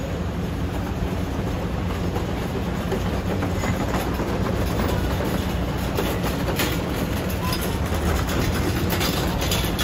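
Steady ambient rumble with a low hum, scattered with light clicks.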